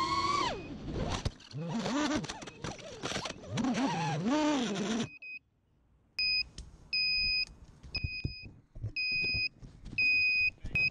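FPV miniquad's brushless motors whine up and cut out as the quad crashes into a tree, then come back in short, rising-and-falling bursts for a few seconds. After a brief pause the quad's lost-model beeper sounds a run of short, high beeps.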